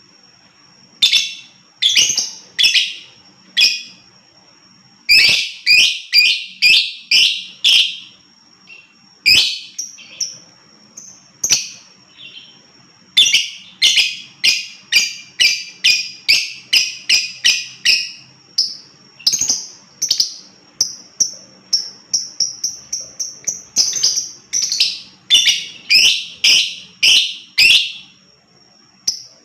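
Lovebird chattering in its 'ngekek' style: long runs of rapid, shrill chirps in several bouts broken by short pauses, over a thin steady high tone.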